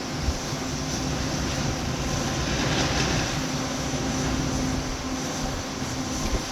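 A steady low buzzing hum under a constant rushing noise.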